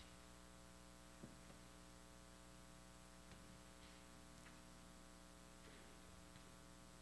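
Near silence: room tone with a steady electrical hum and one faint click about a second in.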